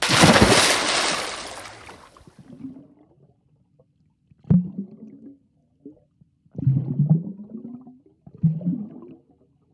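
A person plunging into water from a capsizing kayak: a loud splash that fades over about two seconds, then muffled underwater gurgling and bubbling in a few short bursts, with a sharp click about four seconds in.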